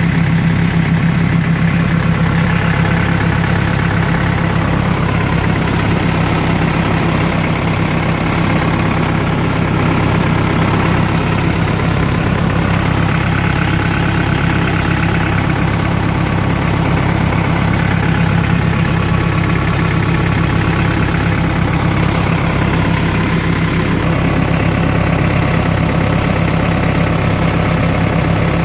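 Diesel engine of a Cat 430D backhoe loader running steadily at an even, low speed.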